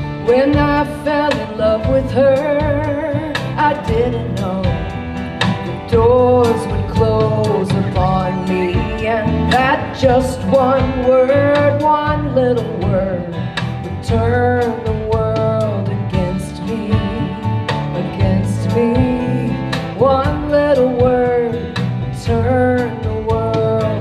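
Live folk-country band: a woman singing lead with vibrato over acoustic guitars and a drum kit.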